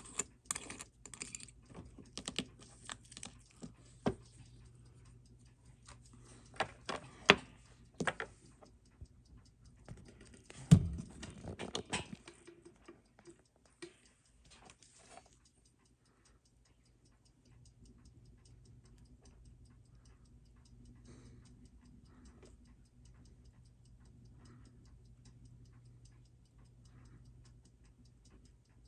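Small, sharp clicks and taps of watchmaker's tools and parts on a dive watch's metal case and bracelet during disassembly, irregular and light, with one louder knock about eleven seconds in. After about fifteen seconds the clicking stops, leaving a faint low hum.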